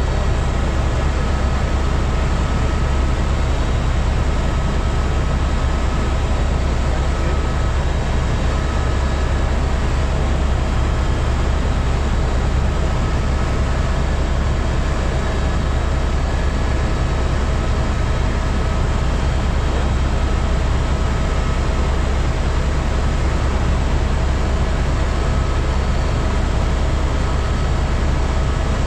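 Steady helicopter cabin noise in level flight: a deep, unbroken drone of rotor and engine with a thin steady whine over it, heard from inside the cabin.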